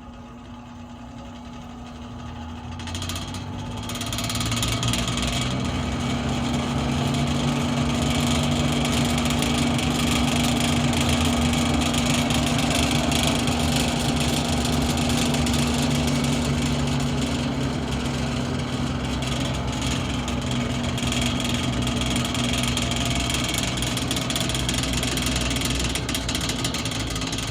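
Manning Bowman 3016 box fan's electric motor spinning up to high speed over the first few seconds, then running with a steady hum and a loud rattle. The owner takes the rattle for a bearing problem, with looseness in the motor shaft from a wrong reassembly.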